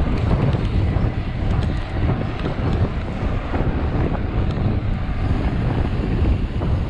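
Wind buffeting the microphone of a handlebar-mounted camera on a moving mountain bike, with the rumble of the tyres over brick paving and scattered small clicks.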